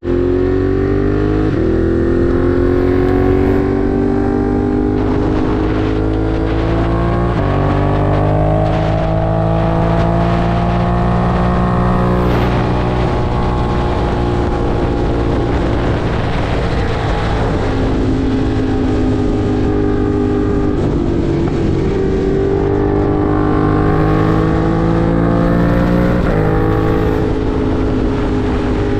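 Ducati Monster 1200 R's 1198 cc Testastretta V-twin under way on a ride, loud and steady, its pitch climbing and easing with the throttle and stepping several times as gears change.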